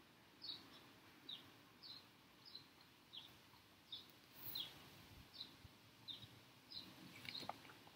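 A bird outdoors chirping faintly and repeatedly, short high chirps that fall in pitch, about three every two seconds.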